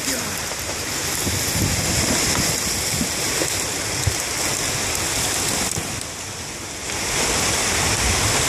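A steady rushing hiss of river ice going out: broken ice floes and water moving past and scraping along the rocky bank, with a brief dip in loudness about six seconds in.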